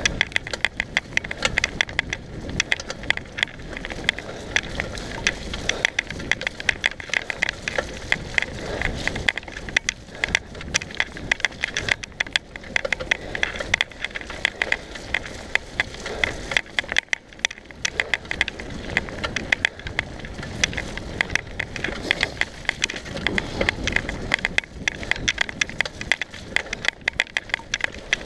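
Mountain bike ridden fast down a dirt trail: tyres on dirt, with constant rapid clicking and rattling from the bike, and wind rumble.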